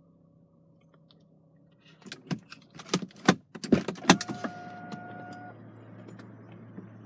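A quick flurry of sharp clicks and jangling knocks, then a steady electronic beep held for about a second and a half.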